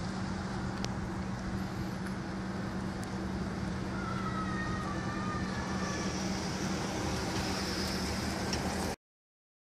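Steady street traffic noise with a constant low hum, and a faint wavering high tone around the middle. It cuts off abruptly near the end.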